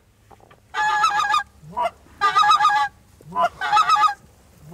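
Goose call blown by a hunter in three quick runs of rapid honking clucks, each under a second long, to draw in a lone goose flying overhead.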